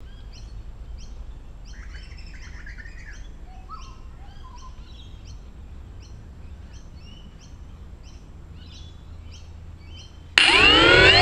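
Birds chirping, a short call repeated about twice a second. Near the end the quadcopter's four Tiger MT2216-9 1100kv brushless motors with APC 9x4.7 propellers start suddenly, far louder than the birds, spinning up with rising whining tones.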